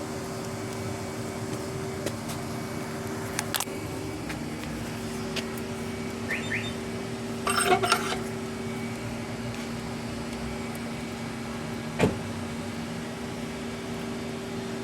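A steady machine hum, with a few light clicks, a short clatter about eight seconds in and a single sharp knock about twelve seconds in.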